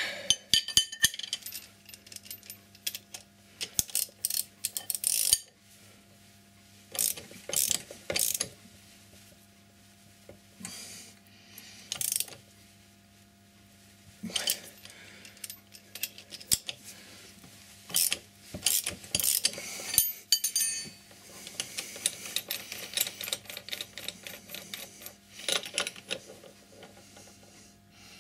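Ratcheting combination spanner clicking in a series of short bursts as it turns the pressure bolt of a motorcycle chain riveting tool, flaring the rivet of the new chain's master link.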